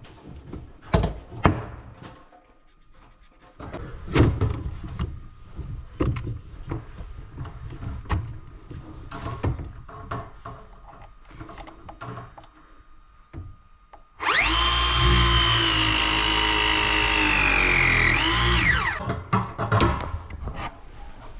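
Clicks and knocks of pipe and fittings being handled, then about fourteen seconds in a cordless press tool runs for about four and a half seconds, a steady motor whine that dips in pitch just before it stops, as it crimps a press fitting on the copper hot-water pipe.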